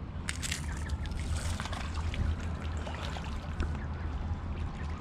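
Mallard ducks splashing and dabbling in the water: a run of small splashes and trickles over a steady low hum.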